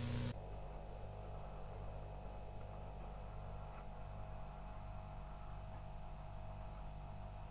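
Steady low electrical mains hum with a faint hiss. A louder low drone cuts off just after the start, leaving the quieter hum.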